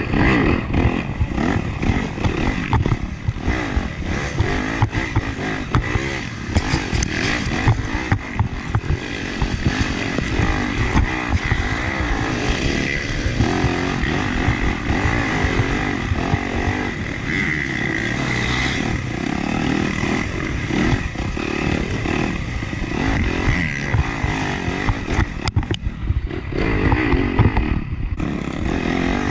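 Dirt bike engine under race load, pitch rising and falling continuously as the throttle is worked along a wooded off-road trail. It is heard up close, on board from the rider's chest-mounted camera.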